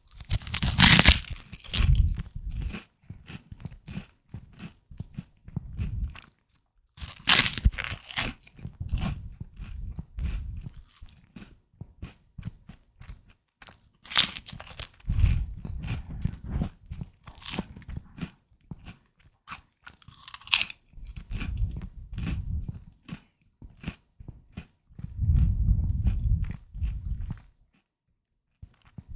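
Crunchy puffed rice being bitten and chewed close to the microphone: a loud crisp crunch at about 1, 7, 14 and 20 seconds in, each followed by a few seconds of steady chewing, with short pauses between.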